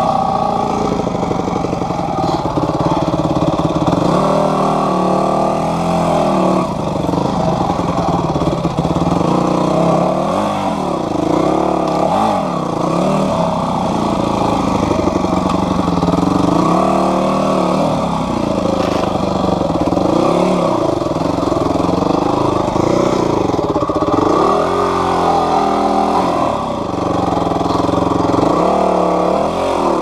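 Yamaha WR250F dirt bike's single-cylinder four-stroke engine revving up and down over and over as the throttle is worked over rough, rocky ground, its pitch rising and falling every second or two.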